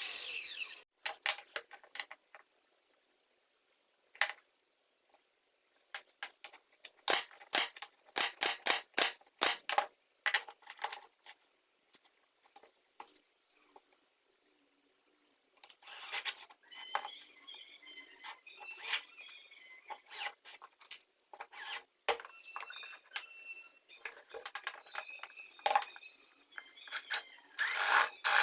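Workshop hand work on metal parts: scattered sharp clicks and knocks, a near-silent pause about halfway, then a busier metallic clatter with ringing high tones. A power tool starts up loudly near the end.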